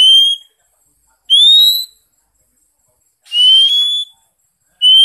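Oriental magpie-robin singing in clear whistled notes: four short notes, each about half a second long and slightly rising in pitch, spaced a second or more apart.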